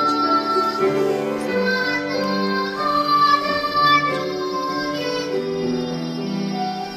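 Children's vocal ensemble singing a slow melody in long held notes, with instrumental accompaniment.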